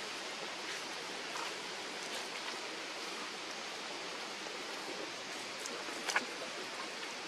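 Steady outdoor background hiss with a few faint ticks, one sharper click about six seconds in.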